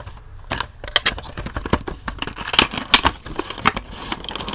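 A cardboard Funko Pop box being opened by hand: a dense run of rustles, scrapes, clicks and crinkles as the tape is cut, the top flap is lifted and the plastic insert is handled, starting about half a second in.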